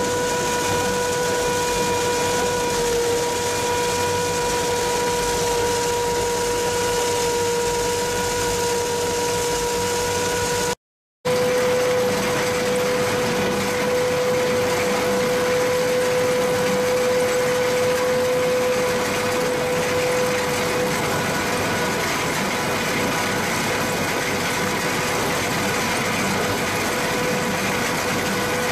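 Pumpkin seed harvester running: a steady mechanical hum with a constant whine. The sound drops out for a moment about eleven seconds in.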